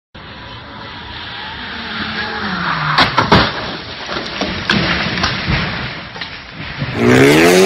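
A car speeding along a wet road, its tyres hissing and its engine note falling, then crashing off the road about three seconds in with a loud crunch of impacts, followed by smaller knocks of flying debris. Near the end, another car's engine revs up, rising in pitch.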